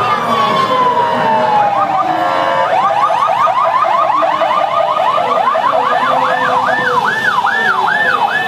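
Several emergency sirens sounding together from a police motorcycle escort and an INEM ambulance: a slow wail falling in pitch, then a fast yelp from about two and a half seconds in, joined about six seconds in by a slower rise-and-fall yelp.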